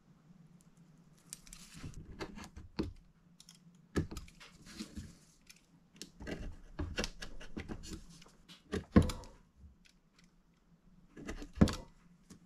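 A knife cutting a thin strip of leather into small patches against a wooden board, with short scraping cuts and handling clicks. Several sharp knocks, the loudest about 4, 9 and 11 seconds in, from the knife and wood set down on the bench.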